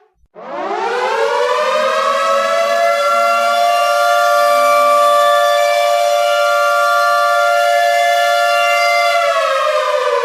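Air raid siren winding up from a low pitch to a steady, loud wail that sounds several tones at once. It holds for about eight seconds, then begins to wind down near the end.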